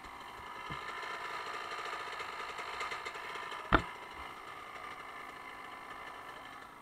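Yamaha dirt bike engine idling, swelling a little and then settling back, with one sharp knock a little past halfway.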